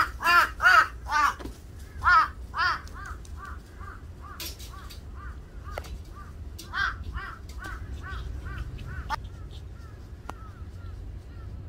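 Crows cawing over and over in harsh, arched calls. The caws are loudest in the first few seconds, then come fainter and further off, with a short louder run about seven seconds in.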